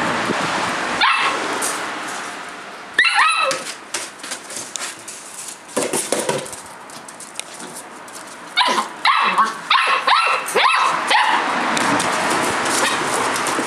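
Rough collie puppies, 57 days old, yapping in short high-pitched barks as they play. There is a single bark about a second in, a quick run of barks around three seconds, and a burst of several rapid yaps a little past the middle.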